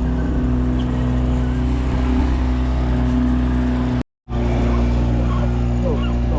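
Boat engine running steadily at a constant speed. It cuts out abruptly for a split second a little after four seconds in, then carries on.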